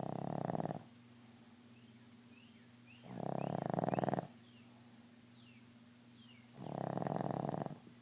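Boston Terrier snoring: three loud, rattling snores about three and a half seconds apart, each lasting about a second, over a faint steady hum.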